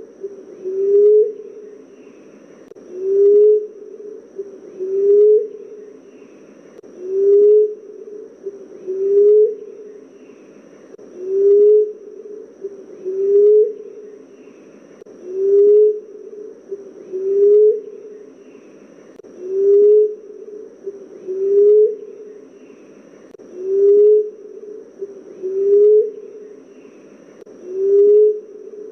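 Emerald dove calling: a long run of low, soft hooting notes repeated at an even pace, each note rising slightly in pitch, as played for luring the bird in.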